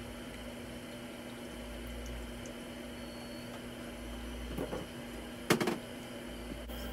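A pot of soup simmering on a lit gas burner under a steady kitchen hum. A short sharp knock comes about five and a half seconds in.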